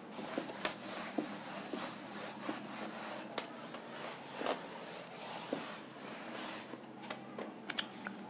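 A cloth rubbing chalk off a blackboard: a steady scrubbing with small knocks that dies away about six and a half seconds in, followed by a few light clicks.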